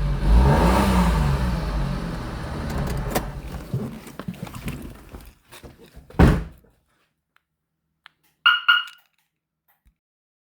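A low rumble fading away over the first five seconds, then a car door shutting with a single thunk about six seconds in, followed about two seconds later by two quick electronic chirps from the car alarm.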